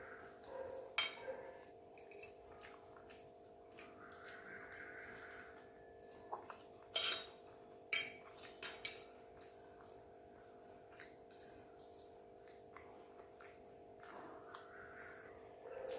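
Eating sounds: a utensil clinks sharply against a dish among chewing and mouth sounds, loudest about seven and eight seconds in, over a faint steady hum.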